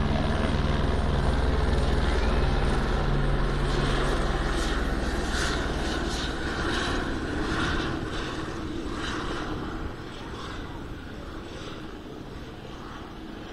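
Police helicopter's rotor drone, strong at first and fading steadily as it flies away.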